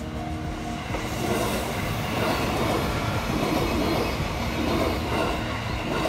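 JR Ome Line E233-series electric train passing close by across a level crossing: a rush of wheel and running noise that swells about a second in and holds loud.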